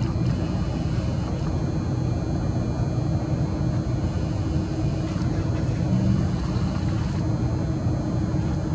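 Steady low rumble with a faint constant hum, like a motor vehicle running.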